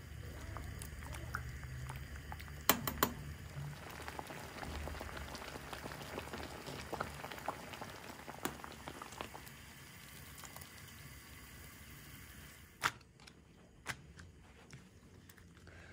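Water bubbling at a boil in a pot, with a few sharp clinks and knocks of a utensil. About thirteen seconds in, the bubbling cuts off abruptly after a sharp knock, leaving quieter handling sounds.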